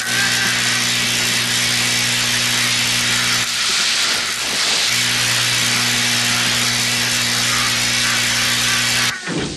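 Electric chair switched on: a loud electrical hum with a crackling hiss, running about three and a half seconds, breaking off for a second and a half, then running again for about four seconds before cutting off suddenly.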